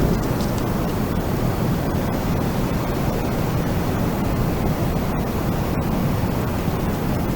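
Wind blowing steadily: a continuous, even rushing noise, heaviest in the low range.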